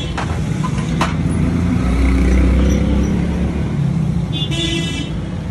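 A steady low motor drone that swells briefly in the middle, with two sharp metallic clicks near the start and a short metallic scrape near the end as a small engine's sheet-metal muffler is handled and fitted.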